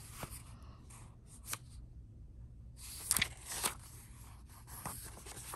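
A paperback devotional book being handled: a few short, soft rustles and light taps of its cover and pages, the clearest a little past the middle, over a faint low room hum.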